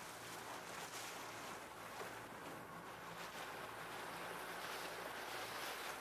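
Steady rush of water and wind heard from aboard a moving boat, with a faint low engine hum underneath.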